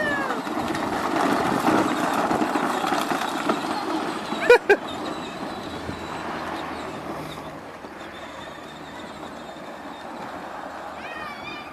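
Kids' electric ride-on toy car (Power Wheels) driving over dirt: the noise of its plastic wheels and drive motors, loudest in the first few seconds and then fading as it moves away.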